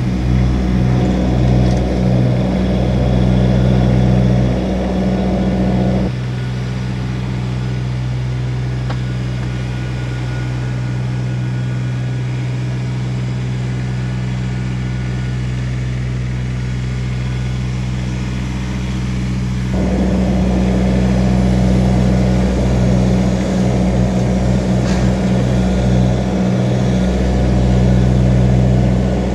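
Kubota BX1850 compact tractor's three-cylinder diesel running steadily. The engine is louder and fuller for the first six seconds and again from about twenty seconds in, and quieter in between.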